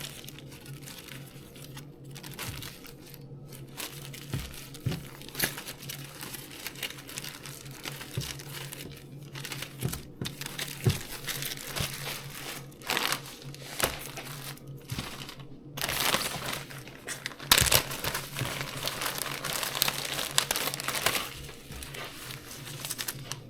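Seed packets rustling and crinkling as they are rummaged through by hand, with a denser, louder stretch of crinkling about two-thirds of the way in, over a low steady hum.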